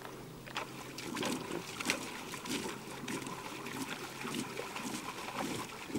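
Small, irregular splashes and trickles of lake water scooped by hand against the side of an inflatable boat at the shoreline, wetting it down.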